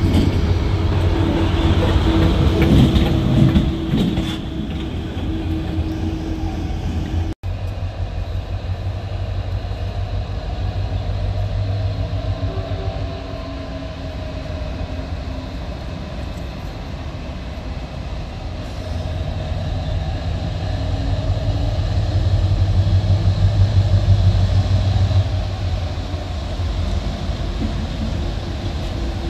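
Diesel locomotive engine running, a steady low drone that swells for several seconds in the second half. The sound cuts out for an instant about seven seconds in.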